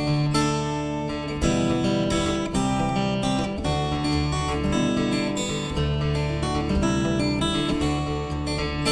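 Background music: strummed acoustic guitar playing a steady, even rhythm.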